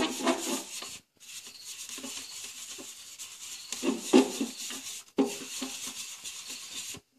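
Rubbing and wiping of polish onto a plastic truck tail light lens: an uneven scratchy swishing in irregular strokes that stops dead twice for a moment.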